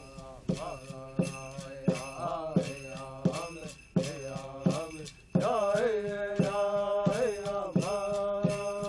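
A voice chanting over a steady jingling beat of bells or rattles, about two and a half strikes a second. The chant grows louder about five seconds in.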